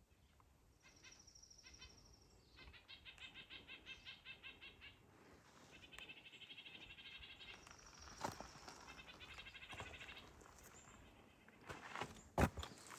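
Faint songbirds singing: several trilled songs of quick repeated high notes, each lasting a second or two, with a few footsteps on the trail near the end.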